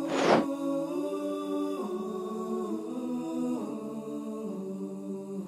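Soft background music of slow held chords, changing chord about every two seconds. A short whoosh transition effect sweeps down at the very start.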